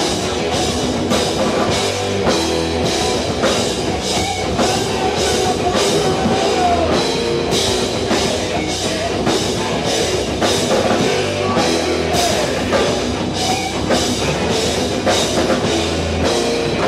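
Rock band playing loud, heavy rock with a distorted guitar over a drum kit hitting a steady beat about twice a second.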